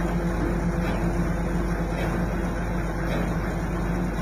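Logsaw machine running: a steady mechanical hum over an even whir.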